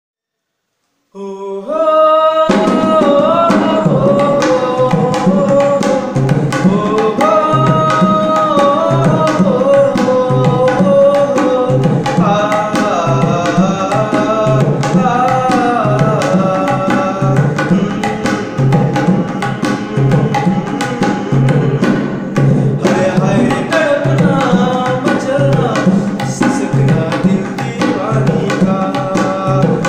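A man singing while he plays a tabla pair, with quick rhythmic strokes on the small and large drums under the melody. The music starts about a second in.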